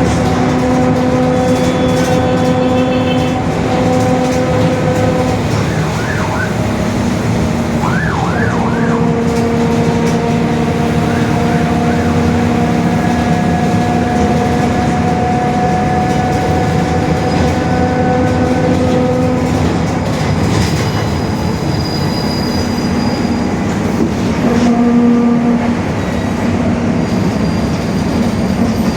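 Mercedes-Benz OF-1721 BlueTec 5 city bus under way, its four-cylinder diesel running with the differential growling. The ride noise carries steady whining tones that shift in pitch several times, with a few short squeaks about six and eight seconds in.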